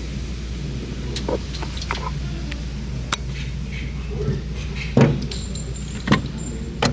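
Sharp gunshot reports at a shooting range: a few single shots, the loudest about five seconds in, then two more near the end, with lighter metallic clicks between, over a steady low hum.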